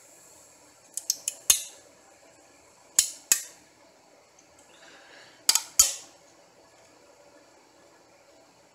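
A metal scraper prying printed support material off a 3D printer's metal bed: sharp clicks and snaps with a short metallic ring, four in quick succession about a second in, then two pairs about three and five and a half seconds in, with a brief scrape just before the last pair.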